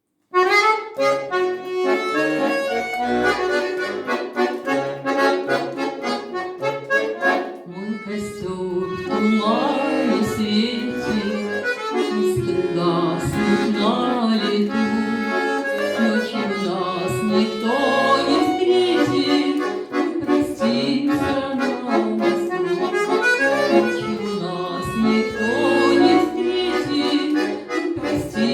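Accordion playing a melody over sustained chords, starting right at the beginning.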